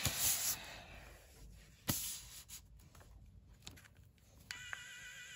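3D pen tip scratching lightly over paper and hardened plastic as it fills in a drawing, with a few sharp clicks. Background music with a wavering tone comes in near the end.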